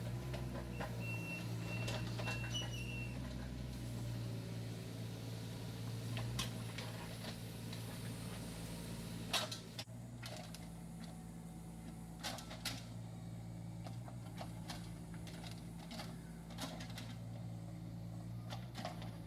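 Kubota KX41-3V mini excavator's diesel engine running steadily under digging load, with several sharp knocks and scrapes as the bucket works through soil full of roots, bricks and metal.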